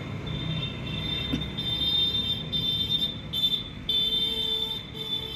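Road traffic passing just outside, a low rumble, with a high steady tone that keeps breaking off and coming back.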